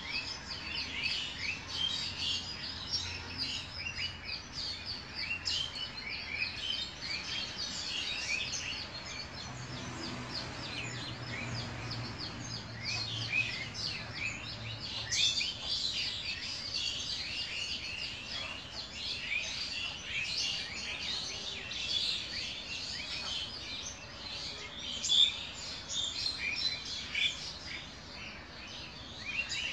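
Many small birds chirping continuously, a dense chatter of short, high calls overlapping one another.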